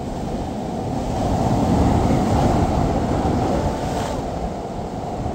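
Sea surf breaking and washing over a rocky shore, with wind on the microphone; the wash swells a little about two seconds in.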